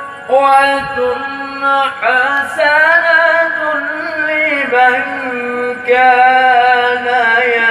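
A single voice singing long held notes that waver and bend in pitch, in a melodic chant style, with short breaths between phrases.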